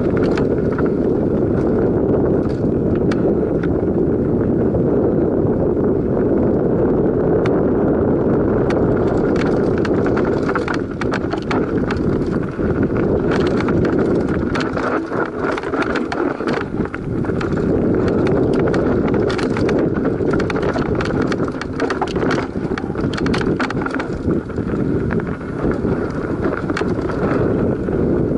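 Enduro mountain bike ridden fast down a rough dirt singletrack: a steady rumble of knobbly tyres on dirt, with quick rattles and knocks from the chain and frame over roots and stones.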